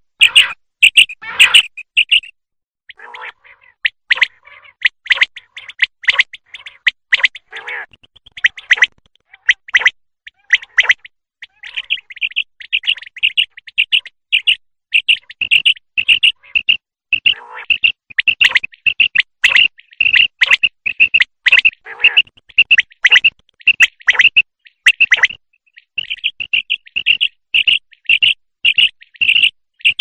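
Common quail calling: a fast run of short, high chirping notes repeated almost without pause, with a few lower notes mixed in. A recording of the kind played as a lure for migrating quail.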